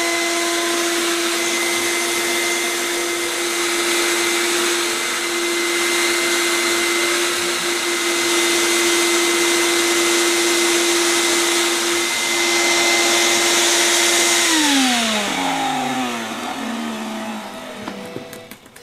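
Shop vac running with a loud rush of air and a steady motor whine, switched off about three-quarters of the way through, the whine falling in pitch as the motor spins down.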